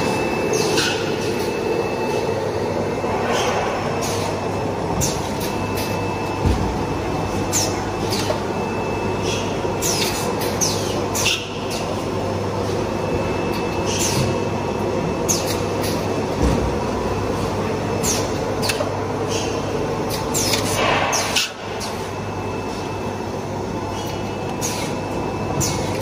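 Paper cutlery molding machine running: a steady mechanical hum with frequent short, sharp hisses and clicks as its press and pneumatic cylinders cycle.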